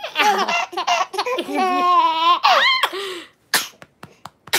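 Infant laughing with excited squeals, one long high squeal held about two seconds in, then a few short breathy bursts near the end.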